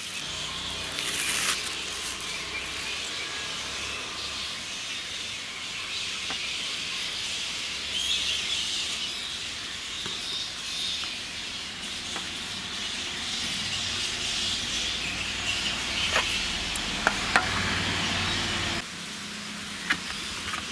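Steady background hiss. A brief rustle of plastic cling film comes about a second in, and a few sharp clicks of a knife against a steel plate come near the end as dough is cut.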